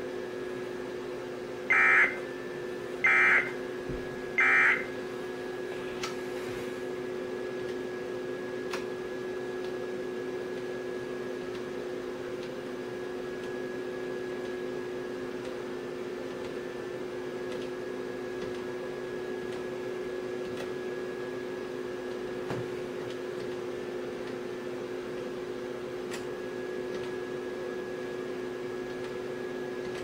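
Three short bursts of EAS end-of-message data tones, a harsh digital squeal, about a second and a quarter apart starting about two seconds in, sent from a Sage EAS ENDEC to close the tornado warning relay. A steady electrical hum follows.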